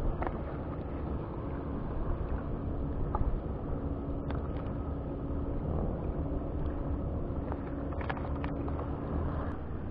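A distant boat engine hums steadily under a low wind rumble on the microphone, with a few faint clicks.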